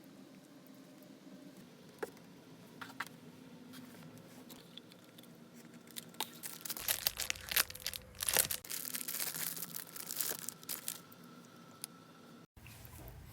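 Plastic food wrapper being torn open and crinkled, after a couple of light clicks, with a dense crackling stretch in the middle.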